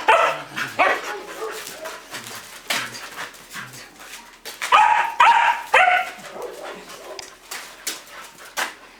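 Excited Samoyed dogs giving short, high-pitched yips and whines at their owner's return, with a quick run of three calls about five seconds in. Sharp clicks and scuffles run throughout.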